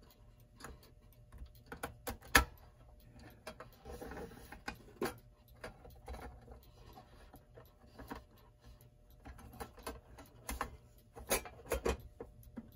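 Irregular clicks, knocks and scraping as the back plate of a Seth Thomas Baxter desk clock is rotated back into place and handled. The sharpest click comes about two and a half seconds in, a soft scrape around four seconds, and a run of clicks near the end.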